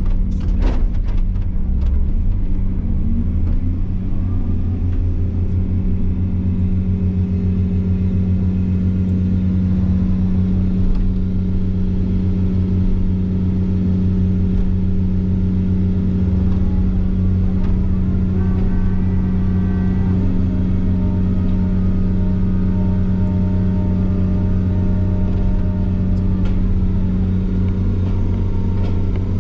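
A heavy construction machine's engine running steadily at a constant speed, with a few sharp knocks in the first second.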